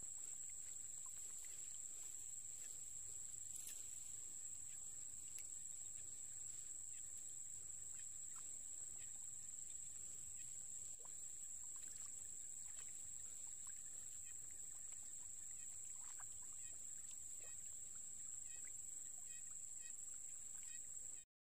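Fish flopping and thrashing in shallow muddy water, making scattered small splashes and wet slaps. Under them runs a steady high-pitched whine.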